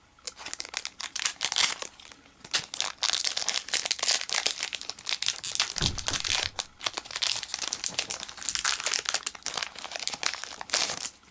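A foil Pokémon card booster pack being torn open and handled, with irregular crinkling and crackling throughout and a soft thump about six seconds in.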